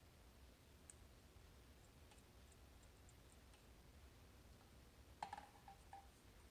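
Near silence with a few faint ticks, then a small metallic clink with a brief ringing tone about five seconds in and a lighter one just before the end: small metal parts being handled during bench soldering.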